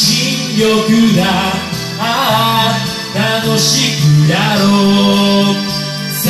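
A voice singing a slow J-pop ballad over a karaoke backing track, following the lyrics line by line.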